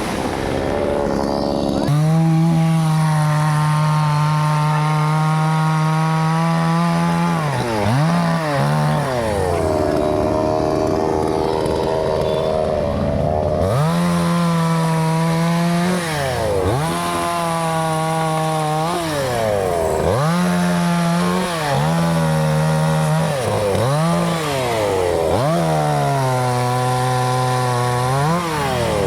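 Chainsaw engine running at high revs while cutting wood. Its pitch drops sharply and climbs back several times, as the revs fall and recover.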